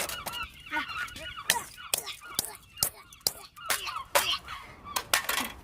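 A series of sharp plastic clicks and snaps as laptop keyboard keys are pried off, mixed with high-pitched squeaky laughter.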